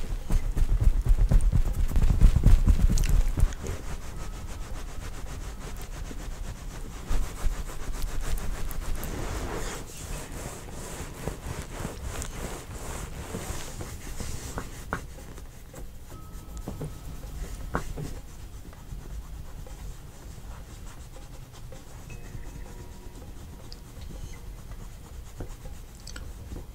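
Hands massaging close to the microphone, rubbing and kneading over skin and fabric. Heavy low thumps and rumble in the first few seconds, then softer, steady rubbing with the odd light knock.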